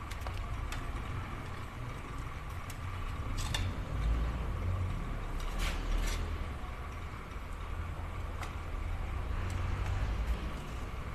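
Steady low rumble with a faint constant hum, and a few light metallic clicks as a piston in a ring compressor is handled against a bare diesel engine block.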